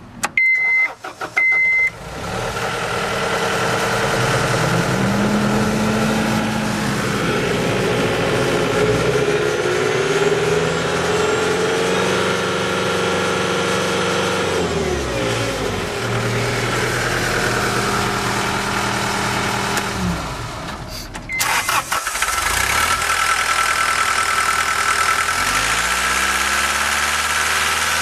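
Two short warning beeps, then the diesel engine of a 2010 John Deere 319D compact track loader starts and runs, revved up and down several times. Just after 20 s it drops away briefly, another beep sounds, and it runs on, climbing in revs near the end.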